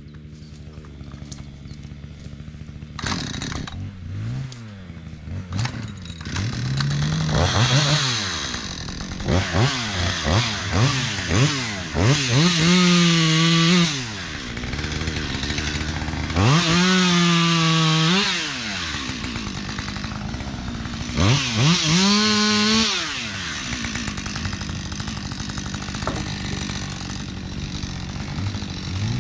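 Petrol chainsaw idling, blipped several times, then revved to full speed three times for a second or two each, the pitch falling back to idle after each run. It goes back to a steady idle near the end.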